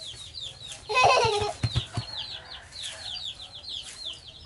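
Chicks peeping: a quick run of high, falling peeps, about five a second. About a second in comes a louder, lower call, with a few soft thumps just after.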